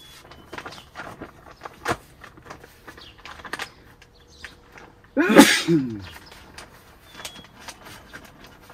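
A person sneezes once, loudly, about five seconds in. Around it are scattered rustles and clicks from the greenhouse's plastic door flap being handled.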